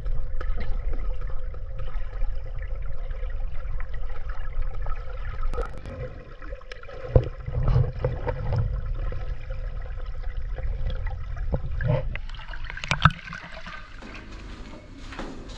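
Swimming-pool water heard by a camera held underwater: a low, muffled rumble and gurgle with scattered knocks. Near the end the camera breaks the surface with a splash, and the sound turns to lighter open-air water lapping.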